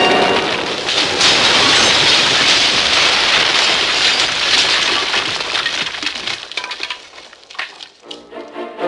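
Sound effect of a burning house: dense crackling and cracking of fire with breaking, crashing noises, dying away over the last couple of seconds. Brass music starts near the end.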